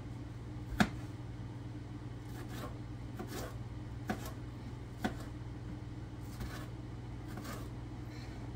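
Kitchen knife slicing a red bell pepper on a cutting board: a few sharp taps of the blade striking the board, the loudest about a second in and two more later, with softer cutting strokes between.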